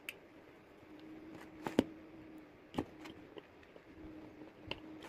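Small screwdriver working the screws of an SK750 wireless mic transmitter's plastic case: a handful of sharp clicks and taps of metal on screw and plastic, the loudest just under two seconds in.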